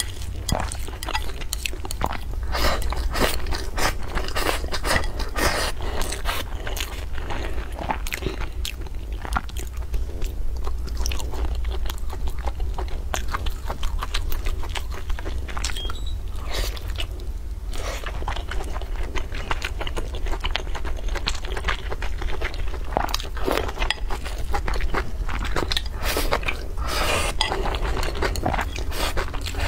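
Close-miked eating sounds: chewing and biting, with dense irregular crunchy clicks and now and then chopsticks scraping or tapping in the bowl of rice, kimchi and braised meat.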